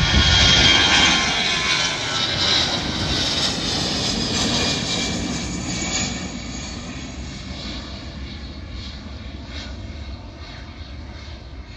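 Jet engines of an Aer Lingus airliner passing: loud at first with a high whine, then fading steadily as the aircraft moves away.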